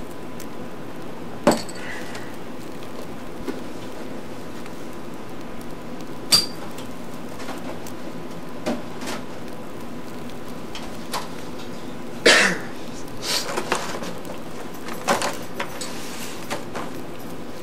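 Kitchen handling sounds: scattered knocks and clinks of a drinking glass and other items being picked up and set down on a counter, over a steady hiss. The loudest cluster of knocks comes about twelve seconds in.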